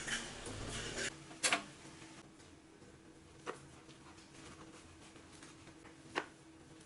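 Kitchen cookware giving a few sharp clicks and knocks: a quick double knock about a second and a half in, then single clicks twice more. The last of a frying sizzle fades out in the first second.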